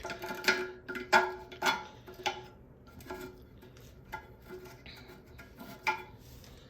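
Metal parts of a stainless steel handheld bidet clinking and tapping as they are handled and fitted, each clink ringing briefly. The clinks come about every half second in the first two seconds, then sparser.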